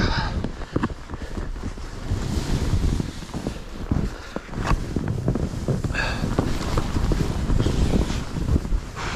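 Wind buffeting the microphone with a steady low rumble and rushing hiss, as heard from a camera carried while skiing downhill.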